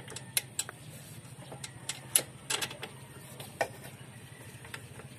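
Scattered sharp metal clicks and taps as the top eye of an aftermarket coil-spring rear shock absorber is worked onto the scooter's upper mounting bracket, the loudest about two seconds in.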